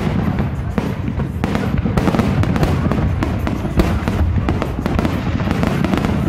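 Aerial fireworks going off in quick succession: many sharp cracks over a continuous low rumble of shell bursts.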